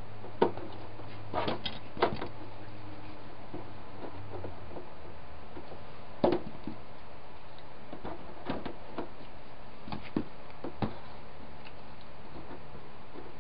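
Metal spring clamps being picked up and snapped onto the edge of a plastic armor plate: scattered sharp clicks and knocks, loudest about half a second in and a little after six seconds, against a steady room hiss.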